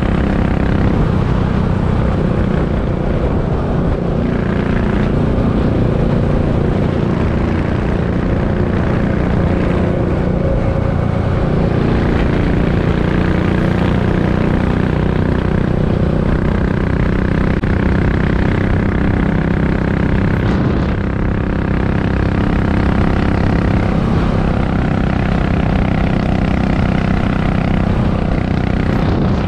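Royal Enfield Continental GT 535's single-cylinder engine running steadily at highway cruising speed.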